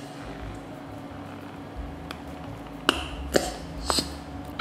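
Thick avocado-honey sauce squeezed from a plastic squeeze bottle into a plastic cup: a few short squirting, squishy sounds, the loudest about three and four seconds in, over a faint steady hum.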